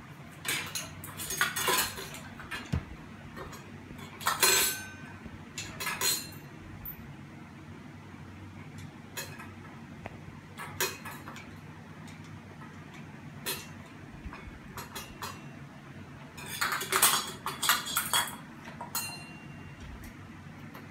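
Metal parts and hardware of a Hunter Pacific Aurora ceiling fan being handled: irregular clinks and clanks in scattered clusters, busiest a few seconds in and again late on. A steady low hum runs underneath.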